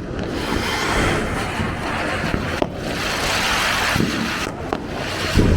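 A Diwali firework hissing steadily as it throws out sparks, a dense hiss that dips briefly twice, with a low thump near the end.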